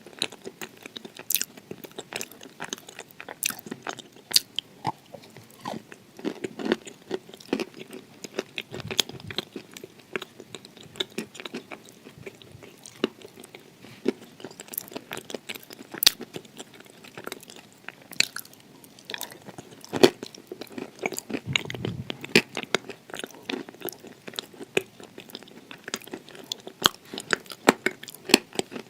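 Close-up crunching and chewing of dry clay in the mouth: irregular sharp crunches and crackles as pieces are bitten and ground between the teeth.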